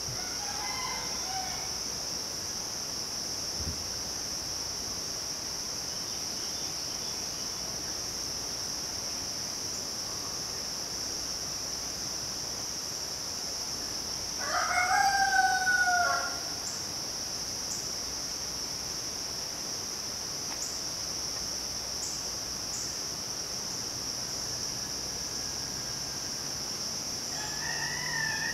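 Rooster crowing, one loud drawn-out crow about halfway through, with fainter crows at the start and near the end. A steady high-pitched drone of midsummer insects runs underneath.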